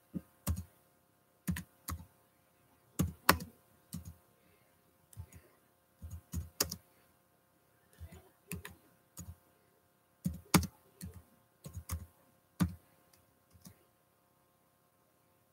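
Typing on a computer keyboard: irregular keystrokes in short clusters with pauses between them, stopping shortly before the end.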